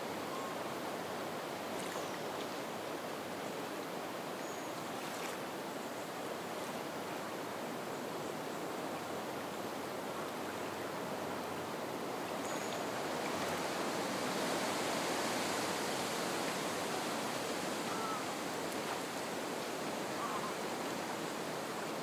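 Steady soft wind through marsh reed beds with water lapping at the shore, a continuous gentle hiss that swells a little about two-thirds of the way through.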